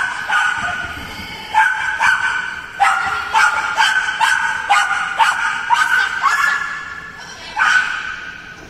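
A dog barking repeatedly and high-pitched, about fifteen barks in quick succession, with a pause of about a second near the end. The barks echo in a large indoor hall.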